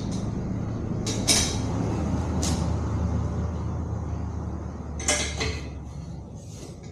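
Wrench and socket work on the swing arm extension bolts: a few sharp metal clicks and knocks over a low steady hum that swells and then fades.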